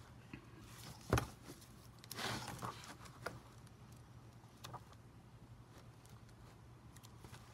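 An old hardcover book being handled and leafed through: a sharp tap about a second in, then paper rustling as pages are flipped, with a few soft ticks of page turns. A faint steady low hum runs underneath.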